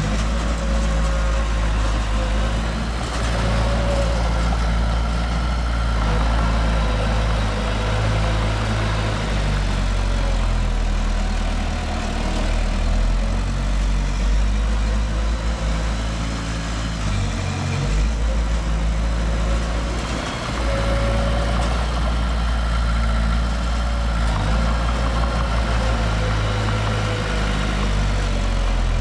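Heavy diesel engine of construction machinery running steadily at a low, even pitch, with a faint whine above it.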